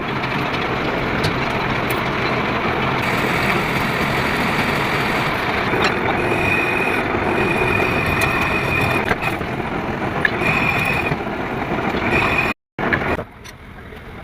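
Metal lathe running as it machines a square thread in a socket, a steady mechanical grinding noise. A high-pitched whine from the cut comes and goes in the middle. Near the end the sound breaks off for an instant and comes back quieter.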